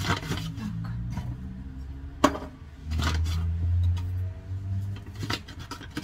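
Paper flour bag being unfolded and opened by hand: crinkling and rustling paper with small taps, and one sharp click about two seconds in. A low drone sounds underneath from about three to five seconds.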